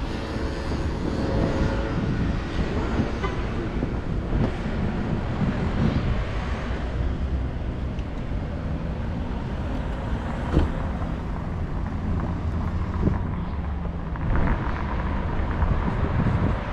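City street traffic: a motor vehicle's engine running steadily close by over a constant urban background rumble, with a few light knocks.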